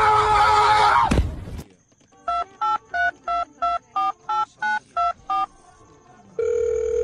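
A loud wavering cry cuts off with a quick downward sweep about a second in. After a short gap come telephone keypad tones, about ten short two-pitch beeps like a number being dialled, and a steady tone starts near the end.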